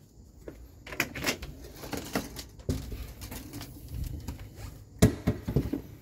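A front door being handled and opened: scattered clicks and knocks from the latch and door, the loudest about five seconds in.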